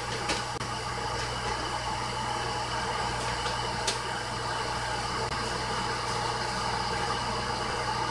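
Glass electric kettle heating water: a steady rushing hiss over a low hum, with a couple of faint ticks.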